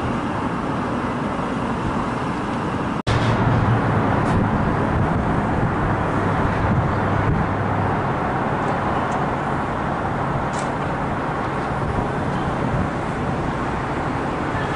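Steady city traffic noise. It breaks off for an instant about three seconds in, after which a low engine drone stands out for several seconds.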